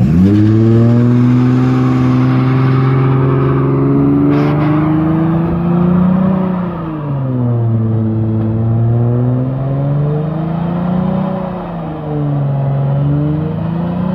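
Mercedes-Benz CLK350's 3.5-litre V6 held at high revs in a burnout, rear tyres spinning on the pavement. The revs shoot up at the start, then sag and climb back twice, around the middle and near the end.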